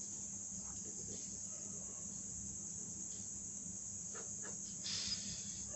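A steady high-pitched background drone with a faint low hum, and a few faint scratches of a pen writing on paper about four to five seconds in.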